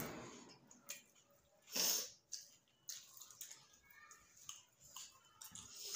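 Faint eating sounds of fingers working rice on steel plates, with chewing and lip smacks, and a short, louder breath noise about two seconds in. It opens on the fading end of a louder noise.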